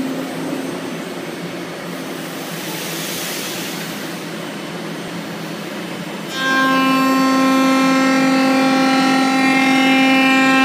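Thermwood C67 CNC router with its 10 HP spindle running: a steady hiss with a faint hum, then about six seconds in a sudden, louder steady whine of several tones.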